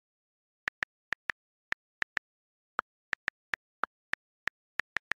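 Computer keyboard keystrokes typing a word: single sharp clicks at an uneven typing pace, about three a second, starting a little under a second in, with silence between them.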